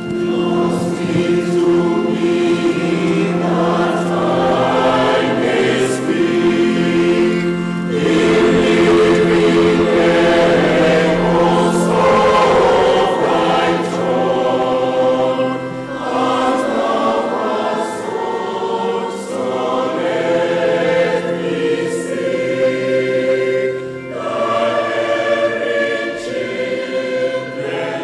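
Church choir singing a gospel hymn in phrases of a few seconds, over a steady low held accompaniment note that drops out about halfway through.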